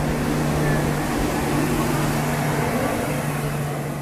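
Running noise of a moving passenger train heard from inside the coach: a steady rush with a constant low hum underneath.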